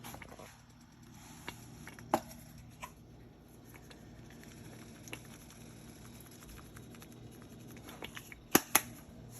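A few scattered sharp clicks and knocks from kitchen utensils at the stove, the loudest two close together near the end.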